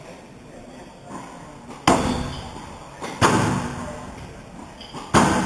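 A squash rally: three sharp, loud ball impacts about a second and a half apart, each ringing on in the hall.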